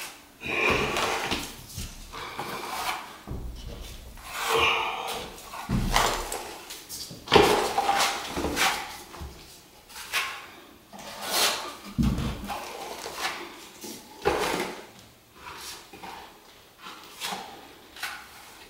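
Irregular knocks, clunks and scrapes of hardwood flooring boards and tools being handled and set down on the subfloor during glue-down installation, with a few heavier thumps.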